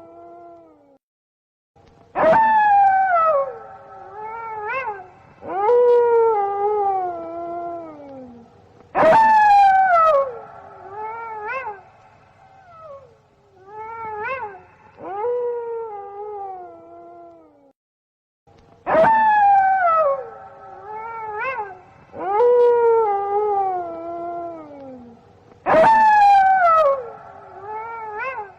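Several wolves howling together in overlapping calls, each starting sharply and falling in pitch over one to three seconds. The same run of howls comes round again about halfway through.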